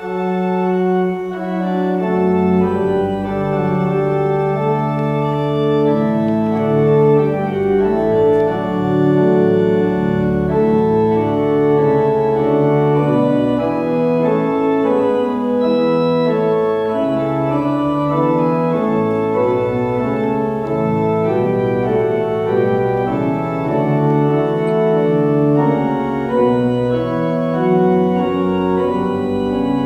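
Organ playing slow, sustained chords, starting abruptly at the beginning.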